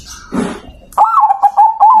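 Zebra dove cooing: about halfway in, a loud phrase of quick, clear cooing notes that carries on to the end. A short noisy rustle comes just before it.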